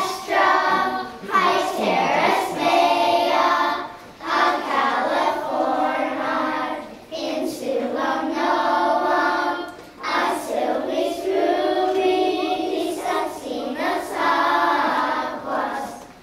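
Children's choir singing together, in phrases a few seconds long with short breaks between them.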